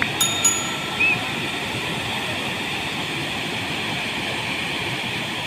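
Water rushing steadily down a dam spillway. Near the start there is a click and a short bell-like chime from a subscribe-button sound effect.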